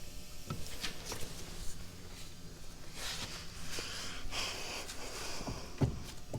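Faint handling sounds from work on tractor parts: a few light knocks and clicks, with a breathy hiss a few seconds in.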